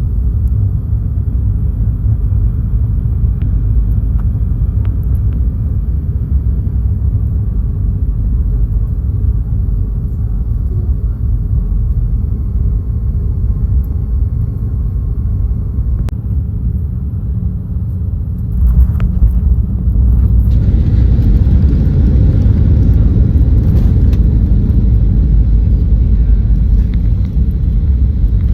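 Boeing 737-800 airliner cabin noise: a steady low rumble. About 19 seconds in there is a short knock, and then the noise grows louder with a broad hiss added.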